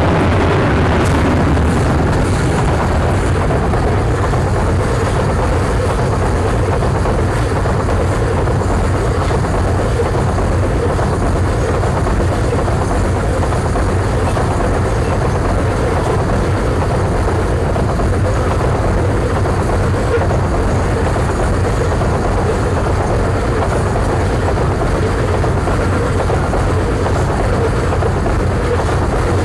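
Babaranjang coal train of 60 loaded wagons, double-headed by CC205 diesel-electric locomotives, passing close by at speed: a loud, steady noise of the locomotives, wheels and wagons on the rails, with no let-up.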